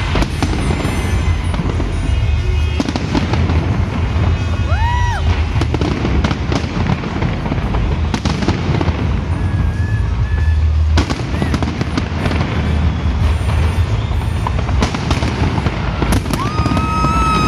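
Fireworks display going off continuously: a dense rumble of booms with sharp crackling bursts layered over it. A few short whistling tones rise and fall through it.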